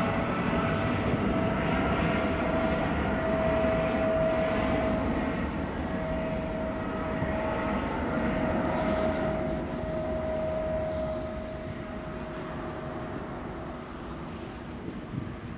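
Alitalia Boeing 777-200ER's twin jet engines, a steady rumble with a held whine, fading gradually over the last few seconds as the airliner moves away.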